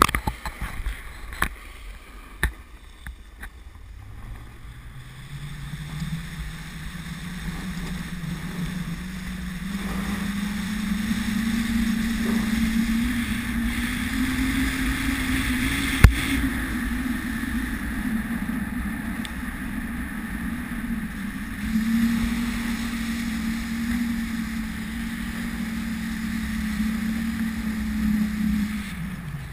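Snowboard sliding down a groomed piste: a steady rushing hum from the board on the snow that climbs in pitch as speed builds over the first ten seconds or so, with wind on the microphone, then dies away right at the end as the rider slows. A few clicks near the start and one sharp knock about halfway.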